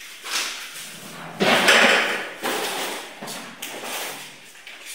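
Rustling and light knocks of bags, a board and tools being handled and lifted off a tiled floor, loudest as a rustling burst about a second and a half in.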